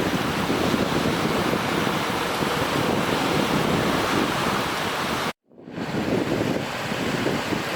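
Wind buffeting the microphone, a steady rushing noise that drops out abruptly for a moment about five seconds in, then fades back in.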